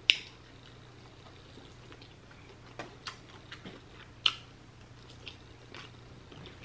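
Close-up chewing and biting of a fried chicken wing dipped in sweet and sour sauce: quiet chewing with scattered short mouth clicks, the sharpest a little after four seconds, and one sharp click at the very start.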